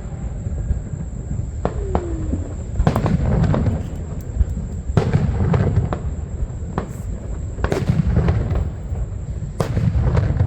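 Aerial fireworks bursting overhead: sharp cracks and booms every second or two, each followed by a heavy low rumble.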